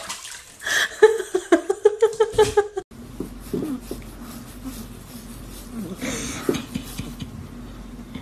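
A pitched voice calling in a quick pulsing run for about two seconds. Then a kitten purring steadily, a low even drone, while its ears are rubbed.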